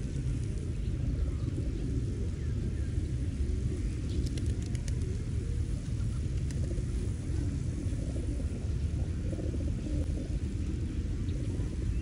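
A steady low rumble, with a flock of feral rock pigeons cooing underneath and a brief cluster of light clicks about four seconds in.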